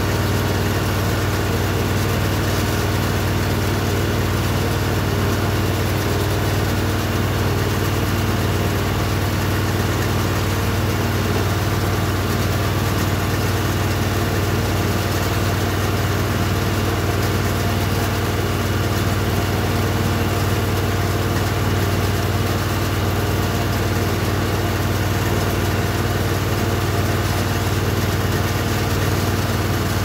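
Tractor engine running steadily, powering a small square baler through its PTO shaft as the baler picks up a windrow of hay.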